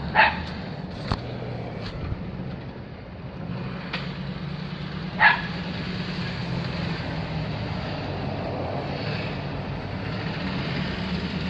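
Ford 5.4-litre V8 gas engine idling steadily. A dog barks once near the start and again about five seconds in, with a few sharp clicks between.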